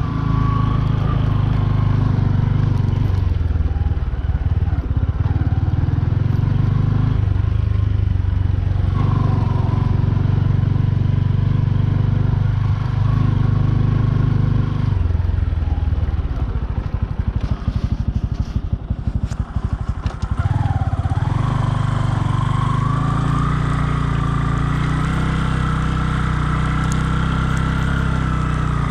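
Bajaj Boxer 150's single-cylinder four-stroke engine running as the motorcycle is ridden. About fifteen seconds in, the revs drop to a slow, pulsing putter for several seconds, then pick up again and run steadily.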